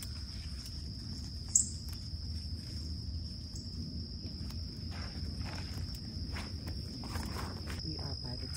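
Insects trilling steadily at a high pitch under the rustle of leaves and branches and footsteps, as someone pushes out through dense shrubbery. There is one sharp snap about one and a half seconds in.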